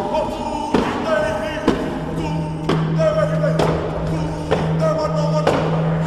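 Background rock-style music with a steady beat, about one drum hit a second over a held bass line and a repeating melody.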